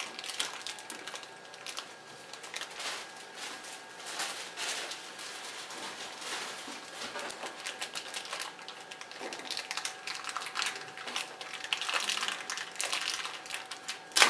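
A small clear plastic bag crinkling and crackling in the hands as it is pulled open and the parts inside are taken out, in quick, irregular bursts of crackles.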